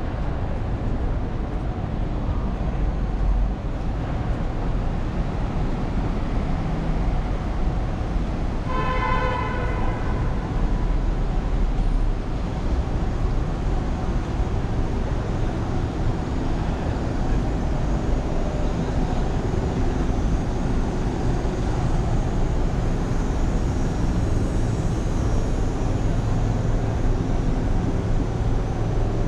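Steady downtown street traffic noise, with vehicles running past. About nine seconds in, a single steady pitched tone sounds for about a second.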